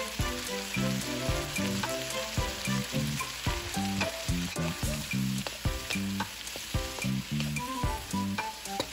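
Sliced bell peppers, onion and tomato sizzling in a wok, with a wooden spatula stirring and scraping them near the end. Background music with a steady run of low notes plays under it.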